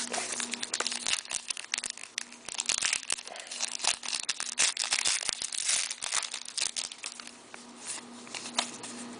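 Crinkling and tearing of a foil-wrapped hockey card pack being ripped open and handled, a dense crackle that thins out near the end.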